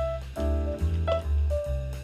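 Background music in a jazz style, with piano and a bass line.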